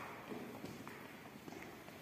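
Footsteps on a hard path: irregular steps and light knocks.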